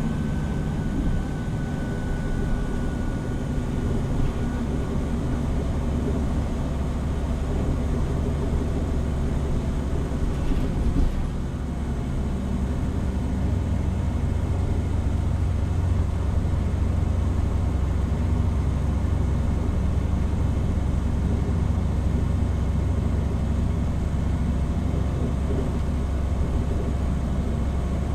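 Running sound heard from inside a Hino Rainbow HR (PB-HR7JHAE) diesel route bus under way: a steady deep engine drone with road noise. A faint high whine fades out over the first few seconds, and a brief louder rattle comes about ten seconds in.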